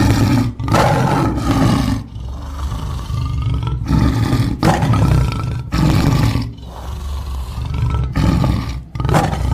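Tigers roaring in a series of loud, rough calls with short breaks between them.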